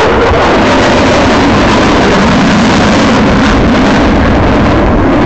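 Loud, steady jet roar of F-15E Strike Eagles' twin turbofan engines as the jets fly back in over the field.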